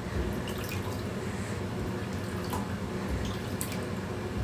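Water running steadily, with scattered drips and a few small splashes as a conure bathes.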